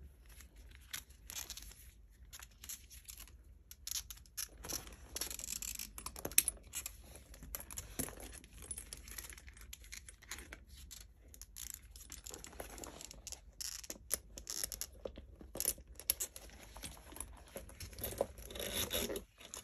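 Handling noise from a bag strap being fitted to a small crossbody pouch: rustling and crinkling, with scattered sharp clicks as the strap's metal clip hooks are worked onto the bag.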